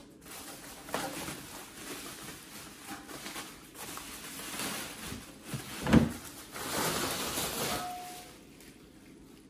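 Packaging and parts being handled while the brake lathe's chip funnel is unboxed: rustling and scraping, with one thump about six seconds in.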